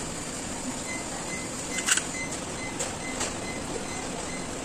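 A few short sharp clicks from wire connectors and terminals being handled in the mixer's electrical box while a replacement start capacitor is wired in, the loudest about two seconds in, over steady background noise.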